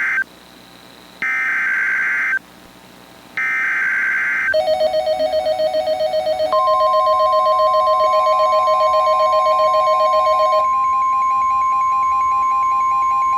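Emergency Alert System SAME header: three short, harsh screeching data bursts a little over a second apart. About four seconds in, a loud, steady alert tone starts, warbling for the first several seconds and then holding steady, with a higher tone joining partway through.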